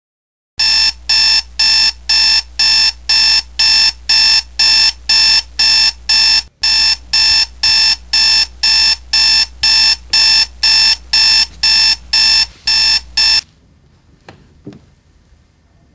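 Toshiba digital clock radio's alarm beeping, about two beeps a second over a low hum, cutting off suddenly about thirteen seconds in. A couple of faint knocks follow.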